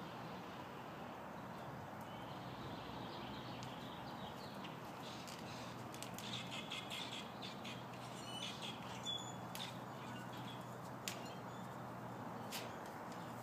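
Birds chirping over a steady outdoor hiss, with a few sharp clicks in the second half.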